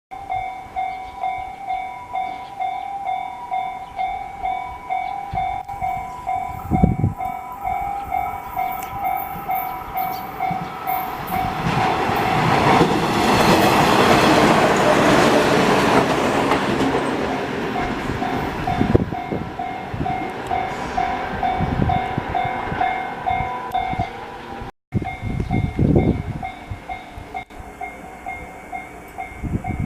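Japanese level-crossing warning bell ringing in a steady pulsing two-tone beat, about two strikes a second, while a train runs through the crossing. The train's wheels on the rails build to a broad rush in the middle and fade away, with the bell carrying on throughout.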